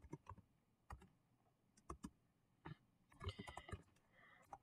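Faint typing on a computer keyboard: scattered single keystrokes, with a quicker run of several about three seconds in.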